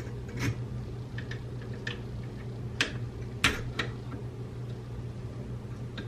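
Metal clicks and clacks of a Draco NAK-9 AK-pattern pistol's parts being fitted back together by hand during reassembly after field-stripping, several sharp clicks with the loudest about halfway through, over a steady low hum.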